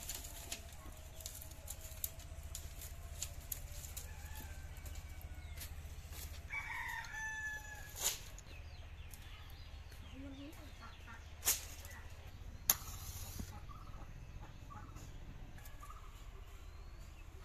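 A rooster crows once, a call lasting about a second near the middle. Around it, dry firewood sticks clatter as they are gathered and handled, with three sharp cracks in the second half.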